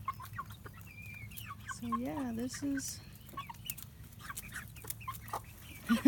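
A mixed flock of adult hens and three-month-old young chickens clucking and peeping while foraging: scattered short clucks and high rising peeps, a longer wavering low call about two seconds in, and a loud cluck at the very end.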